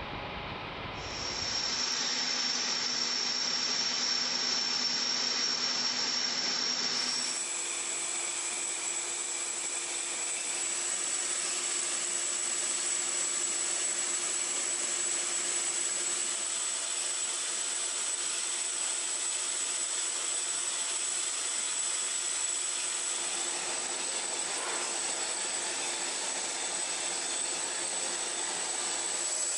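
Steady high-pitched whine over a hiss from turbine-type machinery running on the flight line. The whine steps up in pitch about seven seconds in.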